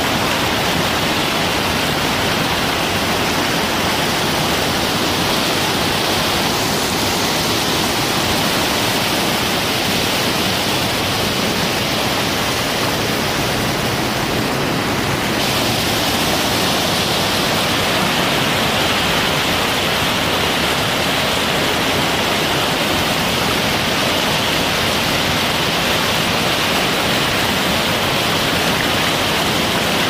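Loud, steady rush of a waterfall and the churning rapids below it, with slight shifts in tone about six and fifteen seconds in.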